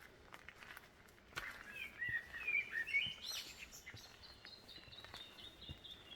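A songbird singing in the bush: a quick warbling phrase, then a slower run of short high notes stepping gently down in pitch.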